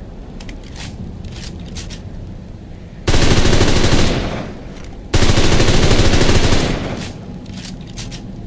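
MP38 9 mm submachine gun firing two bursts of automatic fire, the first about a second long and the second about a second and a half, a second apart. Faint scattered shots sound in the background before and after.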